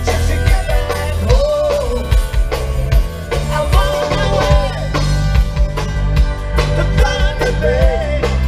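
Live rock band playing a song: a singer over a drum kit with a steady beat.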